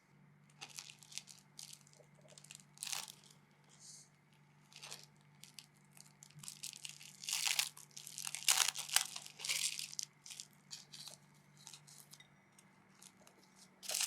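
Irregular short rustling, crinkling and scraping sounds of kitchen food preparation, densest and loudest in the middle, over a faint steady hum.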